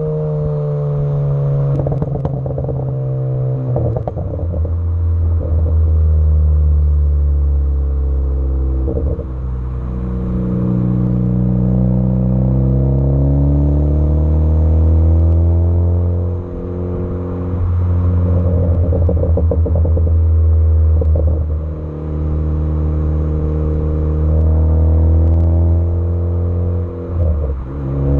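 Ford Focus ST engine and exhaust pulling hard, its pitch rising and then dropping about five times. Each time the throttle is lifted the exhaust pops and crackles: the overrun crackle that the car's tune (a beta version) is written to produce.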